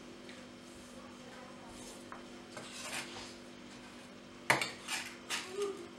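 Chef's knife on a wooden cutting board as garlic is crushed with salt under the flat of the blade. It is mostly quiet, with a soft scrape about three seconds in, then a few sharp knocks and scrapes of the blade on the board in the last second and a half, the first of them the loudest.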